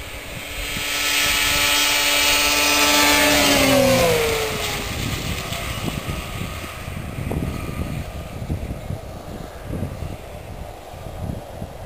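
Snowmobile at speed, the 2007 Arctic Cat F6 Sno Pro's two-stroke engine growing louder as it approaches and passes close by. Its pitch drops about four seconds in as it goes past, then it fades, rougher and uneven, as it pulls away.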